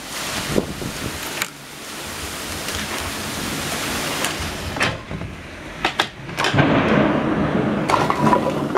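Torrential rain pouring down in a dense, steady hiss. About halfway through it turns duller, as if heard through window glass, and several sharp knocks and clicks come through.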